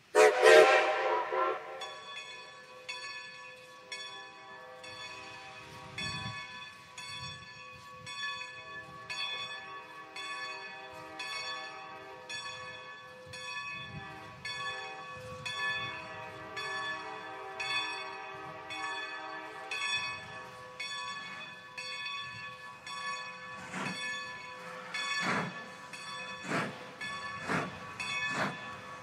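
Strasburg #90, a 2-10-0 steam locomotive, sounds a brief loud whistle blast at the start, then its bell rings steadily at about two strokes a second as it approaches. Near the end its exhaust beats grow louder, about one chuff a second.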